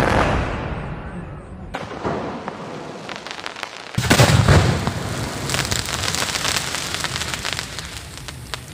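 Fireworks display: a loud aerial-shell burst fading away, then another loud burst about four seconds in, followed by several seconds of rapid crackling.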